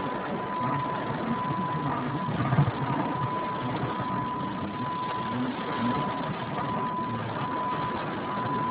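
Car engine and road noise heard from inside the cabin while driving, a steady rumble with a thin, steady high whine running over it. A single low thump about two and a half seconds in.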